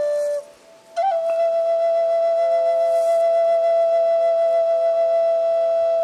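Slow instrumental music carried by one held melody note. The note breaks off about half a second in, and after a short gap a new note starts with a small scoop in pitch and is held steadily.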